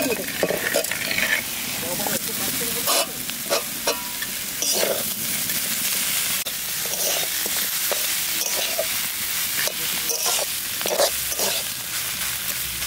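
Shredded cabbage and flaked fish frying in a metal wok with a steady sizzle, while a metal spatula stirs and scrapes against the pan in repeated short scrapes and clacks.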